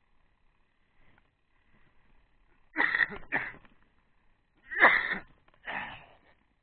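A person coughing: two pairs of short, harsh coughs, the pairs about two seconds apart.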